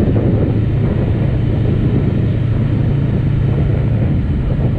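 Bristol Veloce 500 motorcycle engine running at a steady cruise, an even low hum with no change in speed, mixed with road and wind noise on the microphone.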